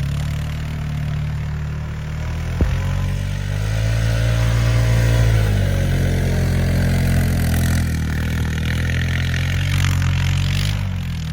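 Vehicle engine revving through the snow: its pitch climbs and then falls back, with a single sharp knock about two and a half seconds in.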